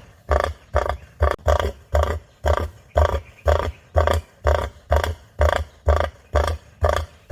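Cassowary calling: a fast, even series of short, deep calls, about two a second, each with a strong low rumble underneath.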